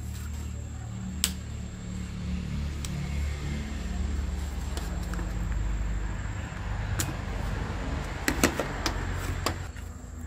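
A low, steady motor-like hum, with sharp clicks and taps from parts and tools being handled while a TV is taken apart, several of them close together near the end.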